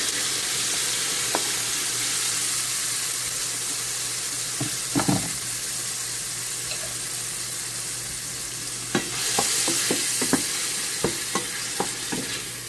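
Diced onion and tomato frying in a pan with a steady sizzling hiss. They are stirred, with short clicks and scrapes against the pan about five seconds in and several more near the end.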